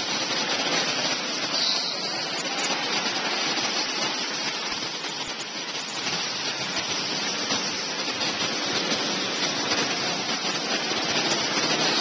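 Go-karts running around an indoor track: a steady, even wash of engine noise with no clear pitch.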